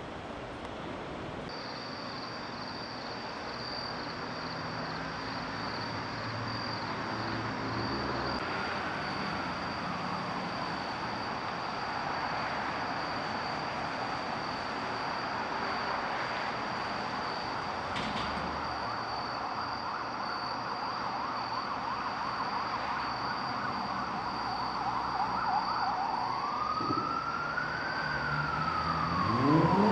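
An emergency-vehicle siren wailing up and down over a steady rumble of traffic, louder near the end, with a steady high-pitched whine throughout.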